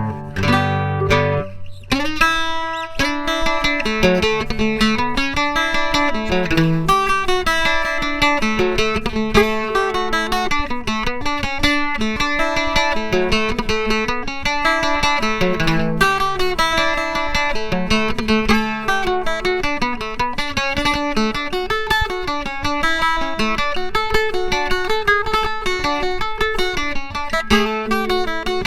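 Eastman MDO305 octave mandolin heard through its JJB Prestige 220 piezo pickup, flatpicked with a thin StringJoy pick. A chord rings at first, then after a short break about two seconds in comes a fast, continuous picked melody.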